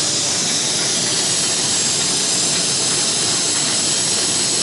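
YFM-107S auto slider painting machine running in its spray cycle with the exhaust fan on: a steady, even hiss of moving air that does not change.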